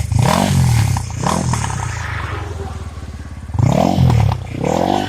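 Motorcycle engine idling and blipped four times: two quick revs near the start and two near the end, each rising and falling in pitch.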